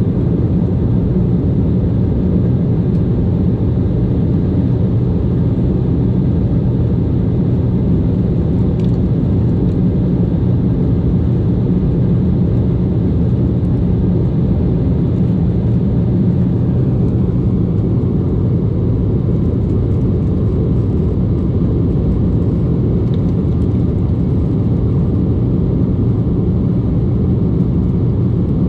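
Airliner cabin noise in flight: a loud, steady low rumble of engines and airflow, heard from inside the cabin.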